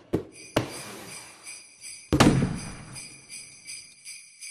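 Jingle bells shaking over a held, shimmering high ring, with a few sharp hits near the start and a louder hit about two seconds in.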